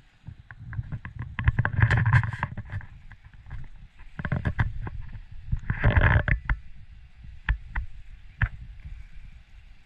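Low rumbling handling and wind noise on a handheld camera's microphone, swelling louder twice, with scattered small knocks and clicks.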